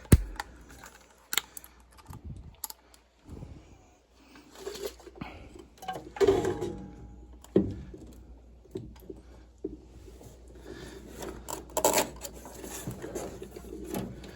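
Metal parts and screws being handled while a replacement furnace draft inducer is fitted into place: scattered clicks, rattles and knocks, with a sharp knock at the very start.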